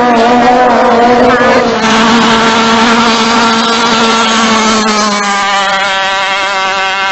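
Small racing speedboat's engine running flat out at full speed, a steady buzzing note over the hiss of spray. The note shifts slightly about two seconds in and again about five seconds in.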